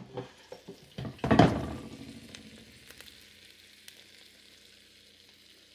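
Air fryer basket drawer pulled open with a clunk and scrape about a second and a half in, then bacon-wrapped steaks sizzling faintly in the hot basket, the sizzle slowly dying away with small crackles.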